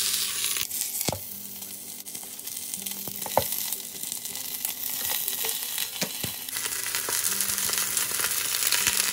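Beef short ribs sizzling in hot oil in an Instant Pot's stainless steel inner pot on high sauté, loud at first, quieter for a few seconds, then louder again toward the end as more ribs go in. A few sharp metal clicks come from the tongs against the pot.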